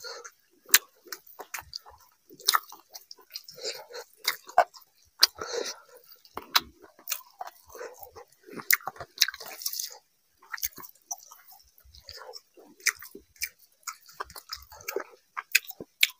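Close-miked wet chewing and lip smacking of a man eating rice and fish curry, with irregular clicks from the mouth, and soft squishing as his fingers mix rice into the gravy.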